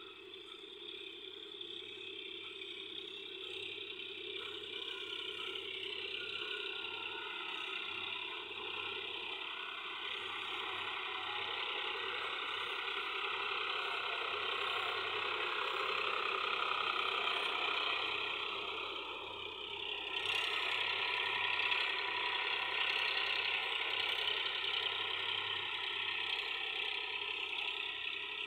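Tractor engine running steadily as it works a flooded paddy field, growing slowly louder, then dipping briefly and rising again about twenty seconds in.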